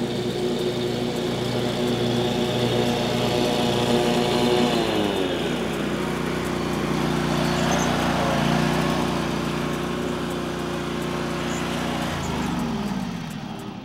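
Truck engine running steadily, its pitch dropping twice, about a third of the way in and again near the end, as the revs fall.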